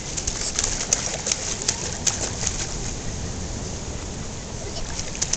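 Pool water splashing and lapping as a baby slaps and paddles at the surface with her hands: a run of small splashes in the first two seconds or so, softer lapping after, and a few more splashes near the end.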